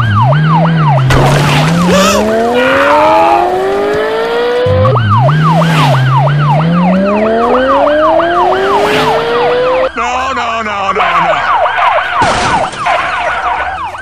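Police car sound effects: a fast-yelping siren over an engine revving up, heard twice in a row, with a few sharp whooshes. About ten seconds in the pattern changes, and the siren goes on in a different, busier form.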